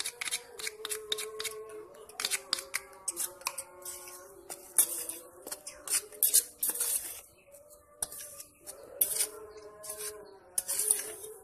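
Metal spoon scraping and clinking against a stainless steel pot while stirring dry flour, in quick, irregular strokes.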